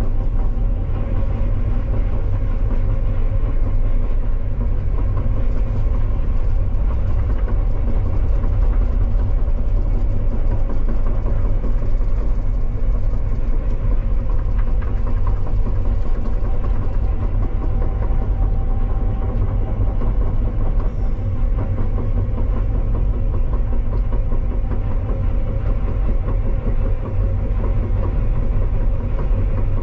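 Electric Cat 320 Z-Line excavator tracking along, heard from inside the cab: a loud, steady hum and whine from its electric drive and hydraulics, with rattle from the steel tracks.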